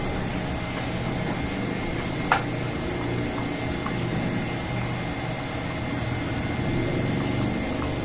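Steady hum of pump-room machinery, with a single sharp click about two seconds in.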